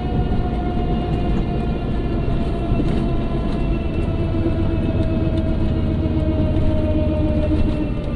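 Whirring from a 1997 Volvo 850 AWD: a clear whine over a low rumble, slowly falling in pitch, a new noise the owner has not traced to a part.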